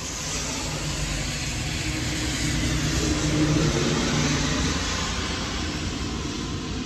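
A motor vehicle passing on a rain-wet street: tyre hiss with a low engine hum, swelling to a peak about halfway through and then fading.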